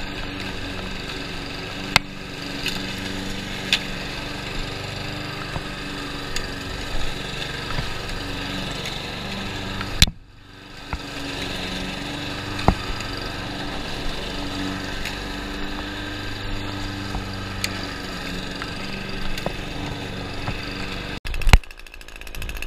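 Gas lawn mower engine running steadily under mowing, with scattered sharp clicks. The sound cuts out briefly about ten seconds in and changes abruptly near the end.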